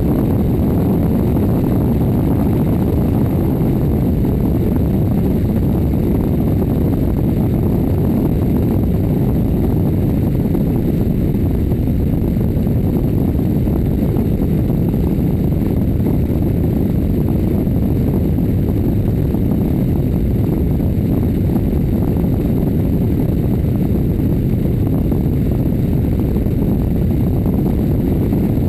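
Steady rush of airflow and engine noise from a plane in flight, picked up by a camera taped to the outside of its belly.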